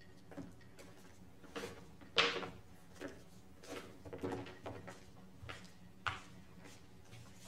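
Scattered soft knocks and rustles of a person moving about a quiet room and handling clothing. The loudest comes about two seconds in, and another sharp one near the end.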